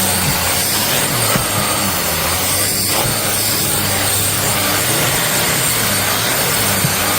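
Shark Stratos AZ3002 upright vacuum running steadily, a loud motor noise with a low hum and a thin high whine.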